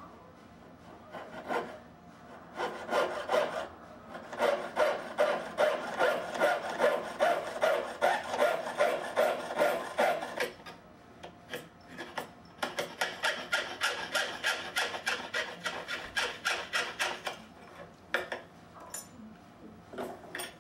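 Jeweler's saw cutting through sheet silver held on a wooden bench pin: rhythmic rasping strokes, about two to three a second, in runs broken by short pauses.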